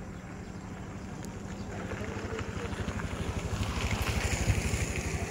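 A motor running with a rapid, even low throb, growing louder from about two seconds in.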